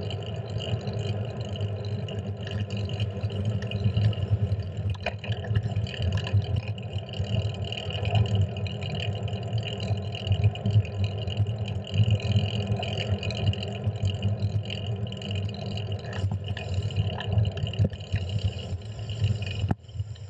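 Steady wind and road rumble on a handlebar-mounted GoPro while riding a fixed-gear bicycle, with a few small knocks from the bars. The rumble drops away suddenly just before the end.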